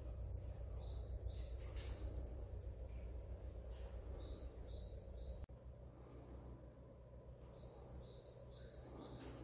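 A small songbird singing three short phrases of high notes that step down in pitch, over a steady low hum.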